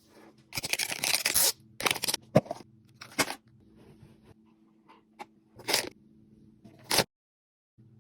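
Plastic wrapping on a Mini Brands capsule ball crinkling and tearing as it is unwrapped: one long crinkly stretch, then short separate crunches and sharp clicks, over a faint steady hum.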